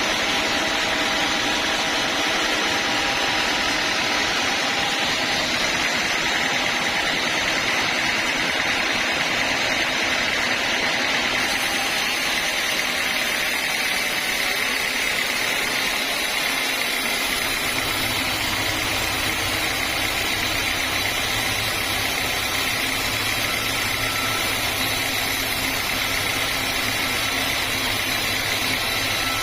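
Homemade band sawmill running, a steady mechanical noise with no break; a deeper hum joins about halfway through.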